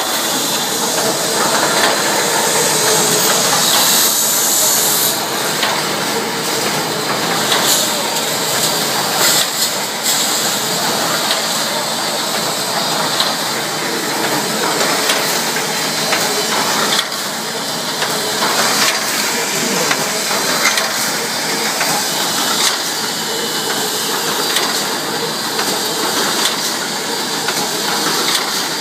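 Automatic welded wire mesh machine running: a dense, steady mechanical clatter and hiss, with occasional sharper clicks.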